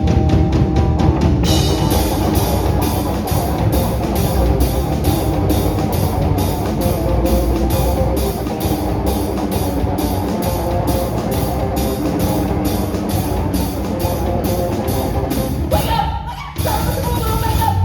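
Rock music with a driving drum kit beat and guitar, steady throughout, changing to a different section about sixteen seconds in.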